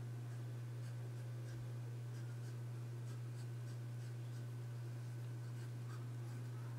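Steel nib of a Manuscript pen scratching across notebook paper in short strokes as letters are written, faint over a steady low hum.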